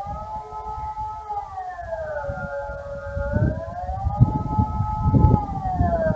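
Kockum Sonics ET 751 electronic civil-defence siren sounding the Swiss 'General Alarm' signal: a wailing tone that slowly rises and falls, with a brief hold at the top and bottom of each sweep, about every three and a half seconds. A low rumbling noise runs underneath, strongest in the second half.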